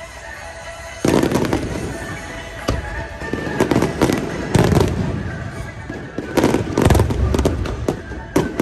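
Aerial fireworks shells bursting in quick succession, starting about a second in, each a loud sharp bang with a rumbling tail.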